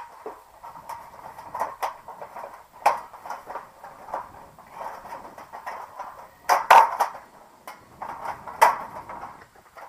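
Sheet-metal sections of a patio heater's reflector hood being handled while small screws and nuts are fitted at the seams: scattered clicks, clinks and scrapes of thin metal, with sharper knocks about six and a half to seven seconds in and again shortly before the end.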